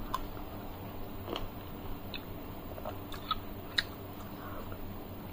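A person eating rasmalai from a spoon: scattered small wet mouth clicks and smacks, with a few sharper clicks a little past the middle.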